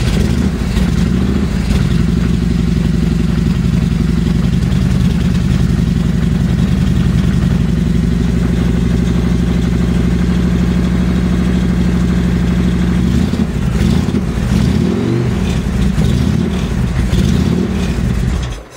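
Harley-Davidson FXR's 100-cubic-inch S&S V-twin running at a steady idle on a cold start. About five seconds from the end the engine note turns uneven and wavers.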